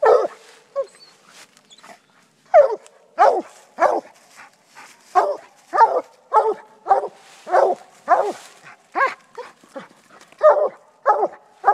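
A bluetick coonhound barking treed, a steady run of short barks about one and a half a second after a brief pause near the start. This is its tree bark at a den tree the quarry ran up.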